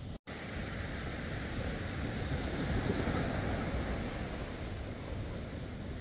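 Atlantic surf breaking and washing up the beach, with wind buffeting the phone's microphone; the wash swells to its loudest about three seconds in. The sound drops out completely for a split second right at the start.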